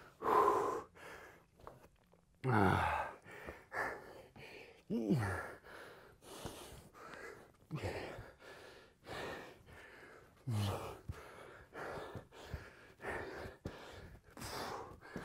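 A man breathing hard from exertion, with a gasping, falling exhale every two to three seconds and quicker breaths between.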